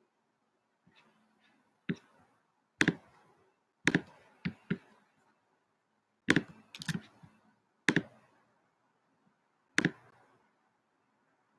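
About ten sharp clicks at irregular intervals, some in quick pairs, the sound of someone clicking at a computer.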